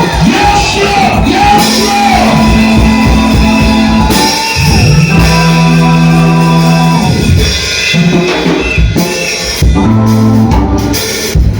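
Loud live church worship music with drums, a keyboard or organ and singing, with some shouting.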